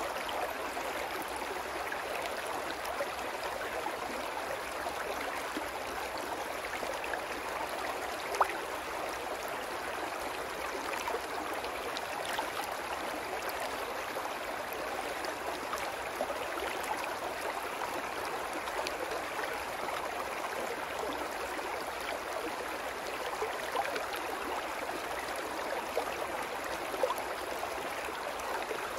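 Small, shallow woodland brook babbling steadily over rocks and riffles, with a couple of brief sharper clicks in the water sound, about eight seconds in and near the end.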